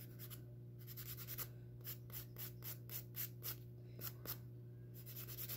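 Hand-held nail file rasping back and forth across fingernails, faint, in quick runs of about five strokes a second broken by short pauses.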